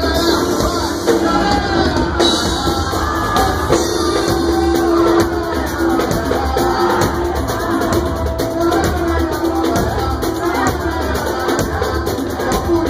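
Live samba band playing a pagode number, with cavaquinho, pandeiro and hand drums under singing.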